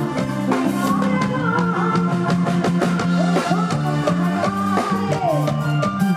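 Live Isan band music at full volume, with a drum kit keeping a steady beat over bass and other instruments.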